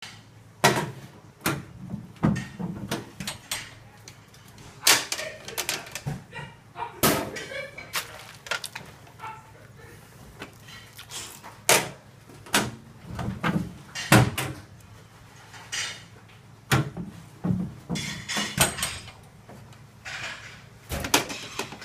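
Irregular sharp metal clanks and knocks, sometimes several in quick succession: stainless steel pans and a hand-held stone-lifter clamp striking the steel rim and lid of a commercial cooking kettle.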